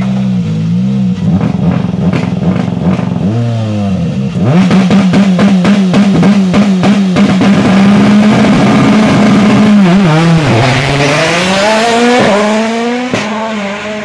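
Ford Puma Rally1 car's turbocharged four-cylinder engine running at a standstill with its anti-lag system on: a rapid string of sharp bangs and pops over the idle. Near the end the engine is revved up and down a few times.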